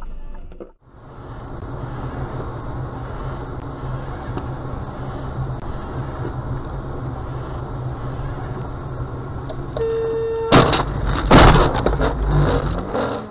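Car driving on a wet road, heard from inside the cabin as a steady road and engine noise. Near the end a horn sounds briefly, then two loud crash impacts about a second apart as the car collides, with loud clattering noise that cuts off abruptly.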